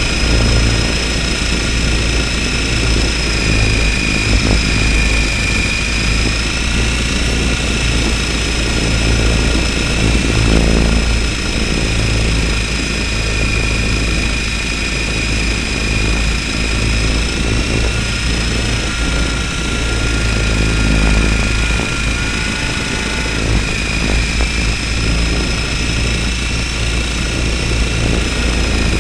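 RC helicopter's motor and rotor heard through a camera mounted on the helicopter itself: a steady high whine that wavers slightly in pitch, over a loud constant low drone of rotor and frame vibration.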